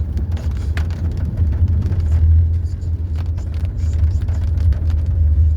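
Car towing a caravan driving over a rough, potholed road: a steady low rumble of engine and tyres with frequent small knocks and rattles from the bumps.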